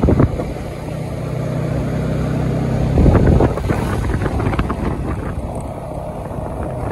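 Motorcycle engine running at a steady road speed, heard from the pillion seat, with wind on the microphone. Rushes of louder wind noise come just after the start and again about three seconds in.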